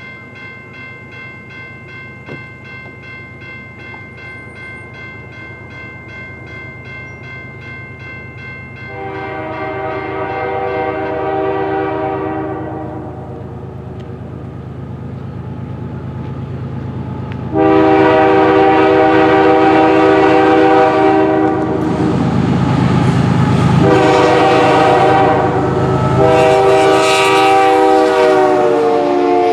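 A bell rings rapidly and steadily as a CN freight train approaches. The locomotive's multi-chime air horn then sounds one blast about 9 seconds in, and longer, much louder blasts from about 17 seconds on, over the rising rumble of the locomotive.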